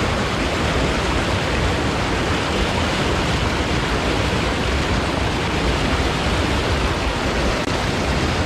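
Steady rushing of river water, an even hiss that does not let up.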